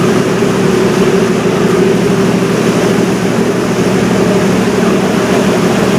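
A river cruise ship's engine running steadily: a constant droning hum with several steady low tones under a broad rush of noise.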